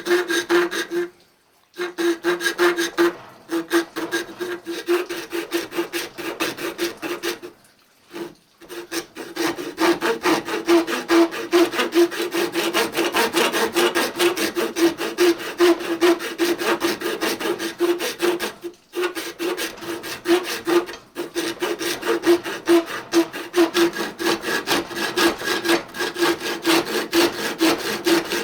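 Hand saw cutting a slot into the top of a wooden axe handle to take the wedge, in quick, even back-and-forth strokes with a steady ringing tone. Brief pauses about a second in and near 8 seconds.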